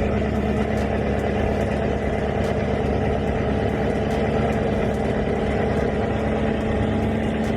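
Car engine idling steadily, a dense low rumble with a constant hum.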